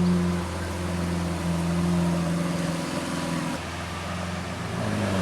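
Car engine running steadily, a sports-car engine sound, with a change in its tone about three and a half seconds in.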